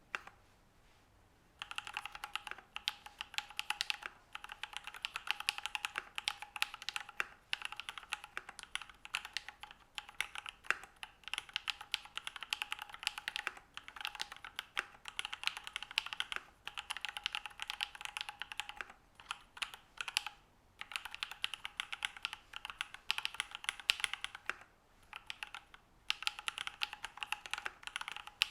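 Fast, continuous typing on a Matrix Noah V2 mechanical keyboard with lubed Alpaca V2 linear switches, an aluminium plate and PBT keycaps. A single click comes at the very start, then the typing begins after a second and a half and runs in long streams with a few short pauses.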